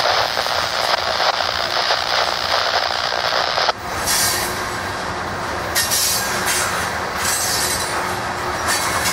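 Norfolk Southern train rolling past, its cars' steel wheels running loud on the rails. The sound changes abruptly about four seconds in, dropping to a steadier rumble with intermittent high hissing.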